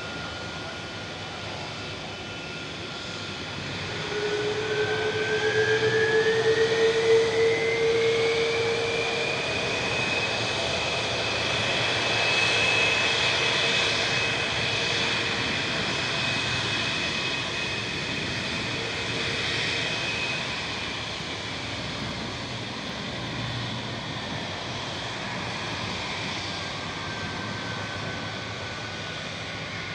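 Boeing 747-400F jet engines on the runway: a turbine whine rises in pitch and grows louder over several seconds, holds steady, then winds back down, over a steady jet noise.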